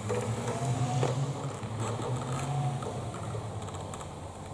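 Electric drive motors of a powered wheelchair humming as it drives off, with a faint higher whine and light clicks and creaks. The hum fades after about three seconds.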